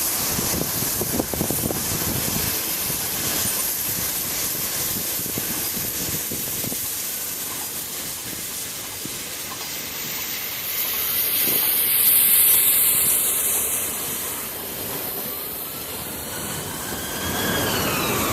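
Three-cylinder Peppercorn A1 steam locomotive 60163 Tornado running with its train, steam hissing loudly, loudest about two-thirds of the way through. A few falling tones near the end.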